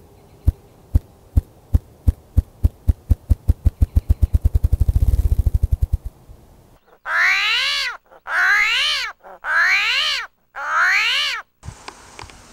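Male ruffed grouse drumming: deep wing thumps about half a second apart that speed up into a rapid whir and die away about six seconds in. Then four loud calls from another animal, each rising and then falling in pitch.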